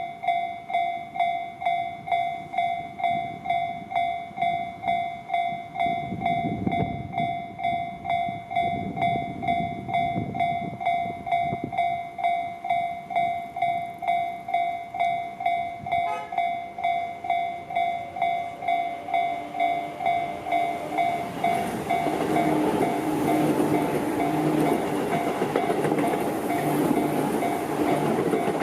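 Japanese level-crossing warning bell ringing its steady electronic ding-ding, about one and a half strikes a second. Over the last quarter the running noise of an approaching Tobu Tojo Line train rises and covers the bell.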